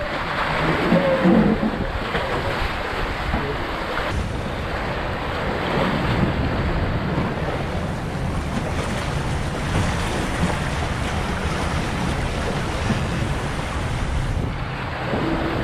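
Steady rush of water along the hulls of a Seacart 30 trimaran under sail, mixed with wind buffeting the microphone.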